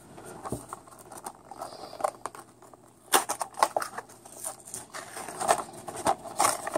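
A small cardboard box and its plastic packaging being opened and handled by hand. Irregular crinkling, tearing and clicking starts sparse and gets busier from about three seconds in.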